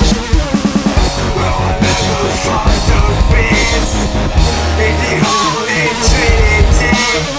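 Loud hardcore/dubstep music track with heavy bass, opening on a rapid run of kick-drum hits in the first second.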